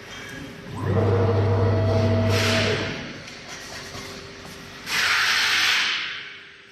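CNC router machinery: a motor hums steadily for about two seconds, then cuts off. Air hisses briefly, then gives a longer, louder hiss near the end, like compressed air being blown off.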